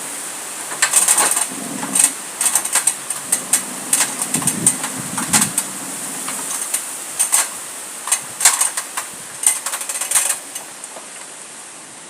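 Irregular clicks and rattles in quick clusters, with a few low thumps in the first half, stopping about ten and a half seconds in.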